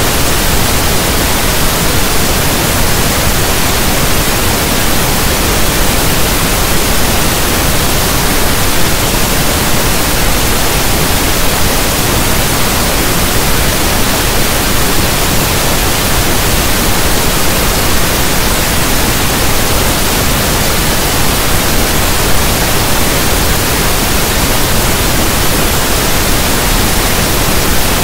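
Steady, loud synthetic pink noise: an even hiss like a radio tuned between stations.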